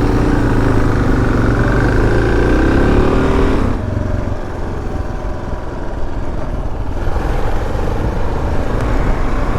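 Single-cylinder 650 cc dual-sport motorcycle engine running under throttle, its pitch shifting up and down. About four seconds in the throttle eases off and it runs quieter for the rest.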